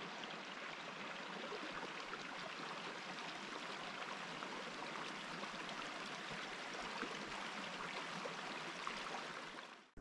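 River water flowing: a steady, even rushing that fades out near the end.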